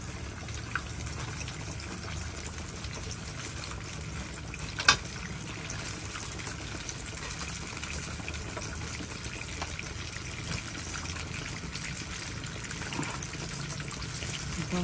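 Battered banana deep-frying in a wok of hot oil: a steady bubbling sizzle. A single sharp click cuts through about five seconds in.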